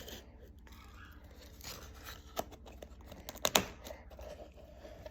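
Light handling of a plastic straw and slime container: soft crinkling with a sharp click about two and a half seconds in and a louder one a second later.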